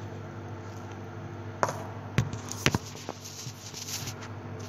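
Four or five sharp knocks and taps of bowls, a container and utensils being handled on a kitchen counter while food is coated in egg and breadcrumbs, over a steady low hum.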